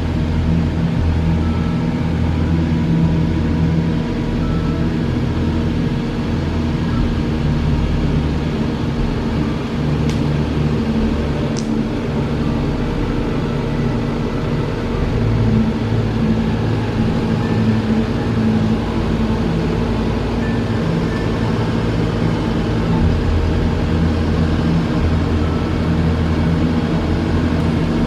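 New Holland T5 tractor's diesel engine running steadily under load, its low note shifting a few times as the tractor works.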